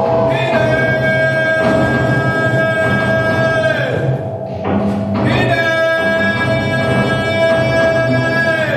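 A singer's voice through a microphone holding long sustained notes: two phrases of about three and a half seconds each, each ending in a downward slide, with a low steady drone underneath.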